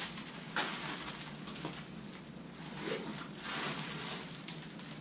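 Clear plastic bag rustling and crinkling as it is handled and unwrapped, in uneven swells, with a light click about half a second in.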